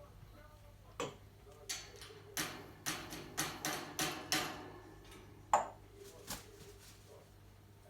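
African grey parrot knocking in its cage: a run of sharp taps, about ten in a few seconds, quickest in the middle, then one more single knock.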